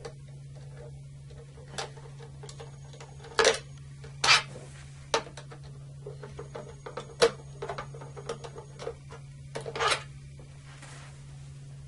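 Phillips screwdriver working the front-cover screws out of an Eaton Series NRX circuit breaker: about six sharp metal clicks spread through, with light ticking between them, over a steady low hum.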